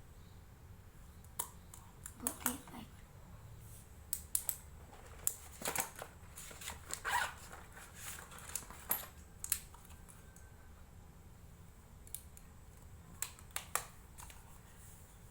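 Irregular light clicks, taps and knocks of small things being handled, bunched together in the middle and again near the end.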